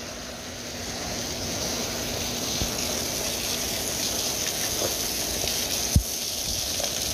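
Heavy rain pouring down and splashing onto wet paving tiles and parked cars, a steady hiss that grows a little louder over the first couple of seconds. A single thump about six seconds in.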